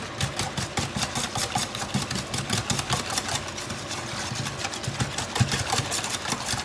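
Wire whisk beating powdered gumbo base into water in a small stainless steel pot: fast, even strokes, several a second, the wires clicking against the metal sides.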